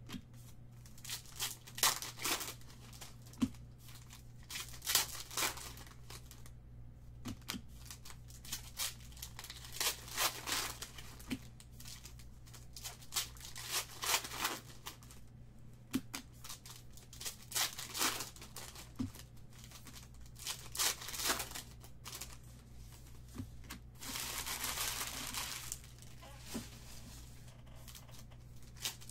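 Foil trading-card packs being torn open and crinkled by hand, in many short crackles, with a longer continuous rustle near the end. A low steady hum runs underneath.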